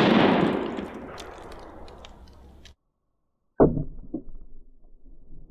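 Echo of a .30-06 rifle shot from an M1 Garand fading away across the range, then, after a short cut, a sharp bang heard close to the target as another armor-piercing round strikes the steel/ceramic armor plate, followed by a few small clicks.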